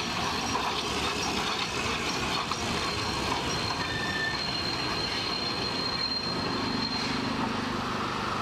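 Steam train hauled by GKB 671, an 1860-built locomotive, rolling slowly in as it arrives, with a steady rumble of running gear. A thin high squeal sounds from about three seconds in to about seven.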